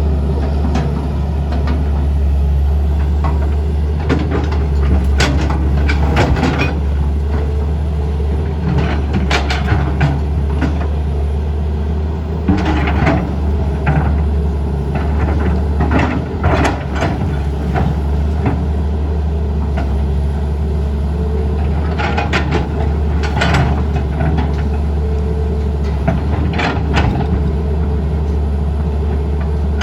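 Heavy machinery engine running steadily, with irregular clanks and knocks of demolition work.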